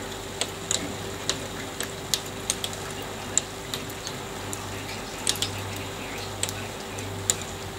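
Scattered hailstones ticking sharply against a hard surface, a dozen or so irregular hits, over a steady hiss and a faint low hum.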